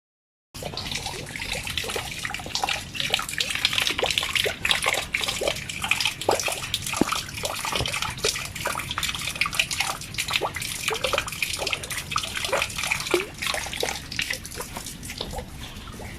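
Water running and splashing into standing water, a steady rush dotted with many small bubbling plops. It starts suddenly about half a second in and drops away near the end.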